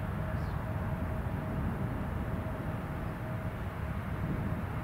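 Jet engines of a Boeing 787-9 airliner running, heard as a steady low rumble with a faint steady whine above it.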